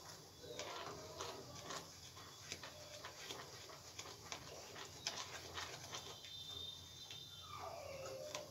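Faint, irregular clicks and scrapes of a silicone spatula stirring thick, reduced milk in a steel pan. Near the end a short animal call slides down in pitch.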